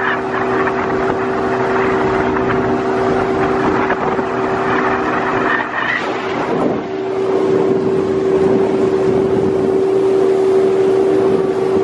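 Yamaha 150 outboard motor running at speed with a steady whine, over the rush of the boat's wake and wind on the microphone.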